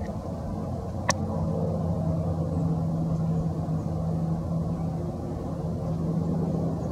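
Steady low rumble of an engine running, with a constant hum, and one sharp click about a second in.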